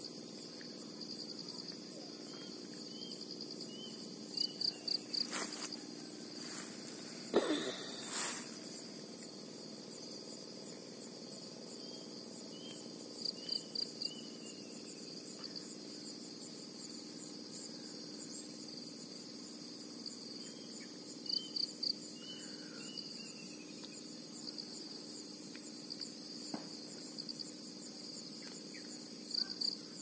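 Rural dawn ambience of insects droning steadily at a high pitch, louder for the first few seconds, with faint bird chirps and a short rapid trill that recurs about every eight seconds. A few sharp knocks come between about five and eight seconds in.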